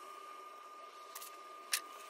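Quiet handling of a small wooden block and a plastic ignition coil: two light taps about a second apart, over a faint steady high-pitched hum.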